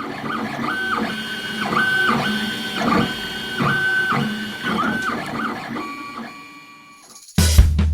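JGAurora A5 FFF 3D printer at work: its stepper motors whine in tones that jump between a few pitches as the print head changes moves, over a steady lower running hum. The printer fades near the end, and music with a drum beat cuts in suddenly just before the close.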